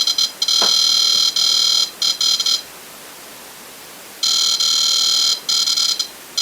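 Ghost-hunting sensor device going off with a shrill electronic alarm in stuttering on-off bursts. It stops for about a second and a half midway, then sounds again. The investigators suspect items on the shelf nearby may be setting it off.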